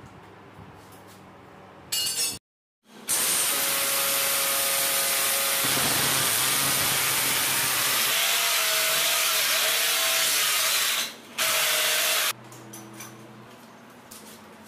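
Electric hammer drill boring into a masonry wall with a masonry bit, running loudly and steadily for about nine seconds, with a short break about eleven seconds in, and stopping about twelve seconds in.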